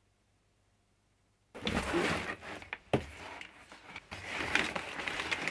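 Near silence for about a second and a half, then brown kraft packing paper and a cardboard box rustling and crinkling as a parcel is unpacked by hand, with sharp crackles and one louder knock about three seconds in.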